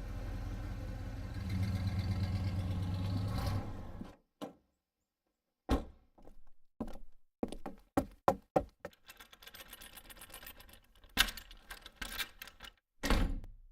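A steady motor-like hum that cuts off about four seconds in, followed by a string of separate knocks and thunks with some clatter, the loudest near the end.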